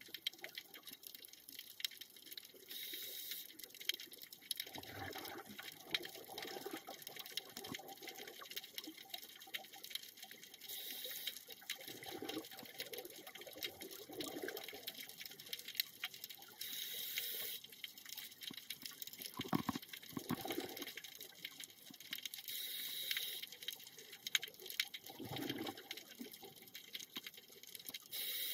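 Scuba diver breathing through a regulator underwater: a short hiss followed by a gurgle of bubbles, repeating about every six to eight seconds, over a constant fine underwater crackle.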